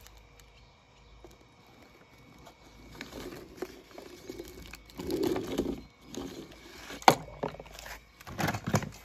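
Small die-cast toy car rolled back and forth over a sheet of paper, its wheels scraping and rattling. Then a sharp click about seven seconds in and a short clatter of knocks near the end.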